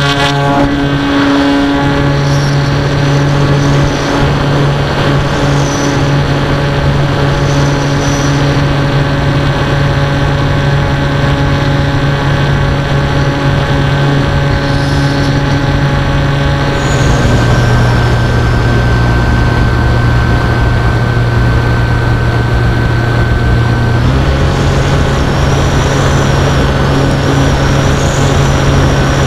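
Zeta Science FX-79 flying wing's electric motor and pusher propeller running steadily in flight, with wind rushing over the onboard camera. The pitch drops about halfway through and rises again about two-thirds through as the throttle is eased back and reopened.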